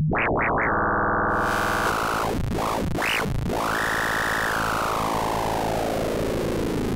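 Arturia Pigments analog-engine synth note, with oscillator 3 frequency-modulating oscillators 1 and 2 as the FM amount is turned. The held tone brightens and dulls several times in quick sweeps, then slowly darkens from about four seconds in.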